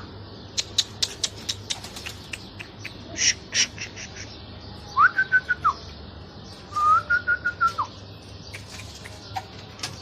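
Whistled notes at a pigeon loft: a couple of steady, fluttering whistles, each about a second long, around the middle, among scattered sharp clicks and taps.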